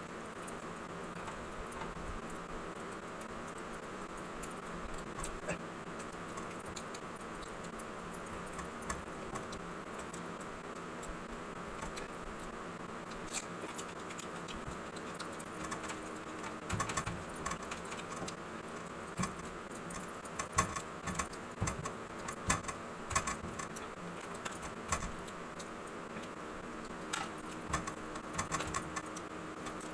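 Close-up eating sounds: chewing with many small wet mouth clicks and smacks, sparse at first and coming thicker and louder from about halfway on.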